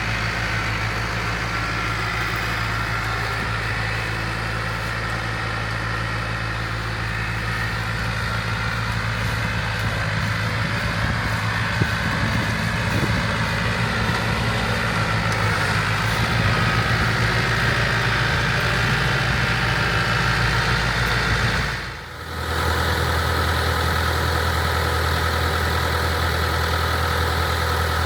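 International Harvester 684 tractor engine running steadily under load, driving the PTO-powered IH 82 pull-type combine as it harvests oats, with the combine's machinery adding to the hum. The sound dips briefly about three quarters of the way through and comes back with a deeper, steadier engine tone.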